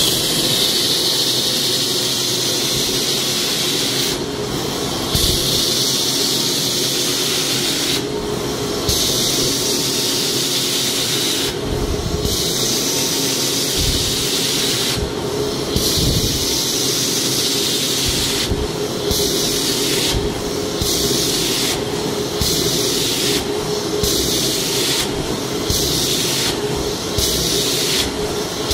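Hot water extraction machine running: a steady motor hum under a loud hiss from the stainless upholstery tool drawn across the sofa fabric. The hiss breaks off briefly between strokes, every few seconds at first and about once a second near the end.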